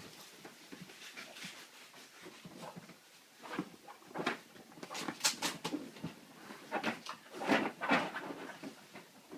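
Wet Cavalier King Charles Spaniel carrying on excitedly after a shower, making a run of irregular breathy and scuffling noises, busiest from about three and a half to eight seconds in.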